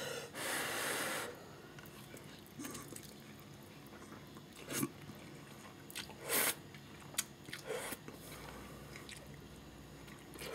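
Someone eating instant ramen noodles with chopsticks: a noisy slurp over the first second, then scattered short, faint chewing sounds.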